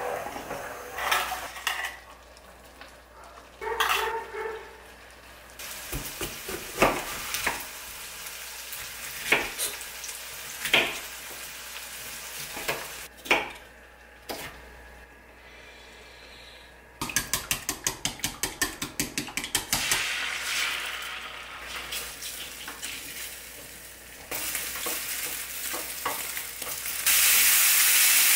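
Kitchen cooking sounds: a wooden spatula stirring and tapping in a frying pan of sauce, then a knife chopping bell pepper on a wooden cutting board in a quick run of about four strokes a second. Near the end, beech mushrooms start to sizzle loudly in a hot pan as they are stirred with chopsticks.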